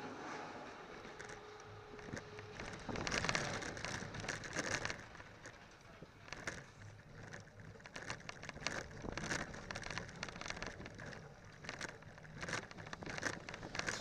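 Zamperla kiddie coaster train running the circuit, heard on board: wheels rattling on the steel track, with many sharp clacks and a loudness that rises and falls through the turns.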